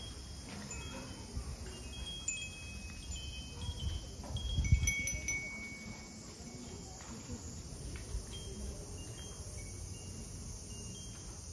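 Many small Japanese fūrin wind chimes tinkling, with short, high, overlapping rings that are busiest in the first half and thin out later. A low rumble on the microphone runs underneath, strongest about halfway through.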